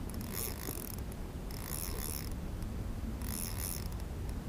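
Spinning reel working during the fight with a large fish, giving faint, scratchy bursts about every second, each lasting about half a second.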